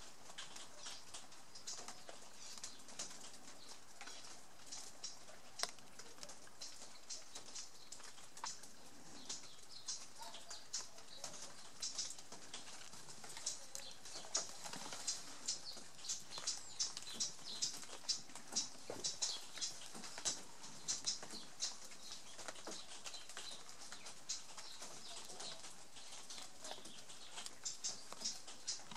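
Water dripping onto leaves in a wet garden: irregular light high-pitched ticks and patter, several a second and thickest in the middle stretch.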